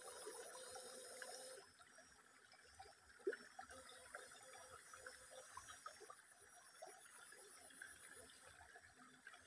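Near silence: faint background ambience, with a soft high hiss that comes and goes.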